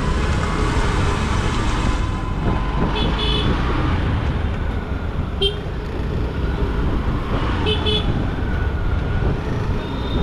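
Motorcycle engine running at low speed in street traffic, a steady low rumble, with short high-pitched two-wheeler-style horn beeps: a double beep about three seconds in, a single beep around five and a half seconds, and another double beep near eight seconds.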